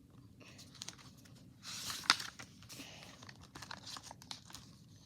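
Paper rustling and crinkling, with a few sharp clicks, as the pages of a paperback picture book are handled and turned. The loudest rustle comes about two seconds in.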